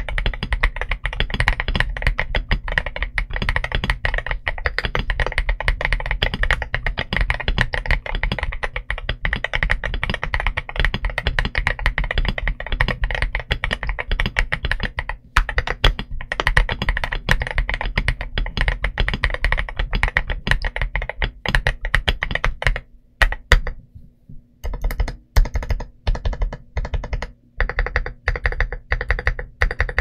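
Rapid typing on a CIY GAS67 mechanical keyboard with Haimu Pastel Thistle tactile switches and XOA/MOA Black Lotus keycaps: a dense run of keystroke clacks. A little over two-thirds in the typing stops briefly, then resumes in shorter bursts.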